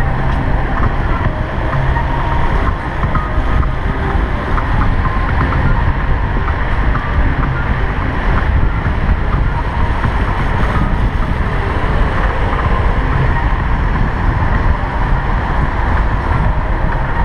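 Loud, steady wind rumble on the microphone of a camera riding on a moving bicycle.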